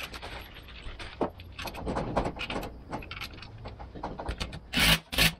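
Steel bolts clicking and rattling irregularly as they are threaded by hand into a beadlock ring, with two louder clatters near the end.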